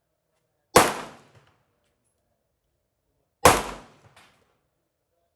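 Two 9mm pistol shots from a Shadow Systems DR920 Glock-pattern pistol, about two and a half seconds apart, each a sharp crack with a short echo tail.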